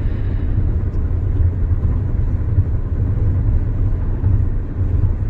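Steady low road rumble inside the cabin of a Hyundai SUV driving on the freeway.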